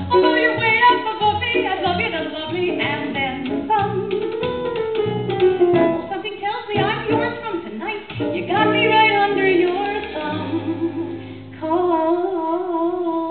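A woman singing live into a microphone over instrumental accompaniment, the voice sliding through a phrase and ending near the close on a long held note with a wide vibrato.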